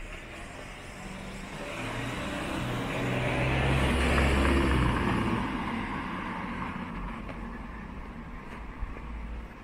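A motor vehicle passes close by on the street, its engine and tyres growing louder to a peak about halfway through and then fading.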